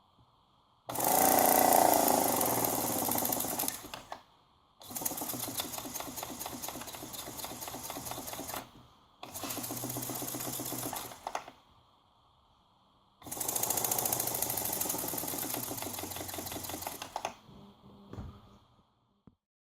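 Volkswagen Golf Mk4 electric fuel pump motor, powered from a bench supply, switched on four times in spells of two to four seconds, each with a fast, even rattle. The first spell is the loudest. The noise is typical of a bad bearing in the pump motor.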